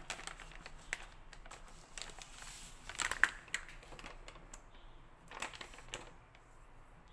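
Plastic packet of muffin-powder pancake mix crinkling and rustling as it is handled. The loudest cluster of crackles comes about three seconds in, with a few scattered clicks after it.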